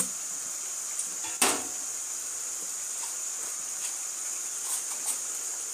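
A single sharp knock about a second and a half in, with a short ring after it, and a few faint clicks, over a steady high hiss.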